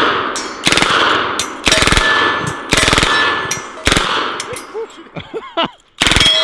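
Unsuppressed Ingram M10 (MAC-10) submachine gun in .45 ACP firing on full auto in short bursts of rapid shots, about one burst a second for the first four seconds. A last burst comes near the end after a pause.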